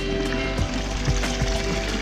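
Background music with steady, sustained tones.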